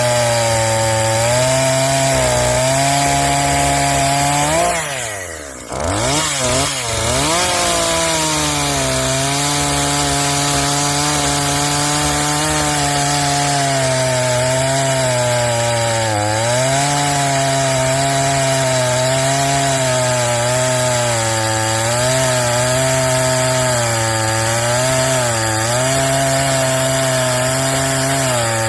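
NEO-TEC NH 841 40 cc two-stroke chainsaw with a 16-inch bar, freshly tuned, running at high revs while cutting through a large log. About five seconds in the engine speed drops sharply and climbs back, and later there are two smaller, brief dips in revs.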